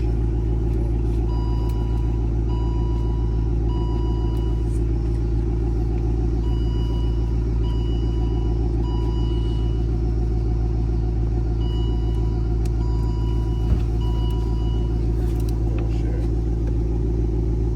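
A vehicle engine running steadily with a low rumble. Over it, a repeating electronic beep sounds in groups of three short beeps about every five seconds.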